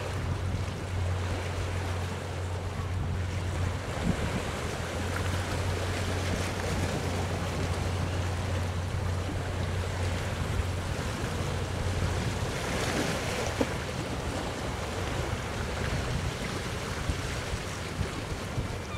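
Low, steady drone of a motor yacht's engine as it moves off, fading out about two-thirds of the way through, over wind on the microphone and sea noise, with a stronger gust near the end.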